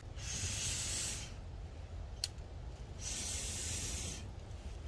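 Two long breaths blown onto a smoky wood fire in a small camp stove to get it burning, each a steady airy hiss lasting about a second, with a single sharp click between them.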